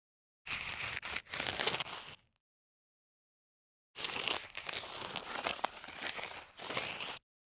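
Sneaker soles sliding and scuffing across concrete in two separate slides, the first about two seconds long and the second about three seconds long starting about four seconds in.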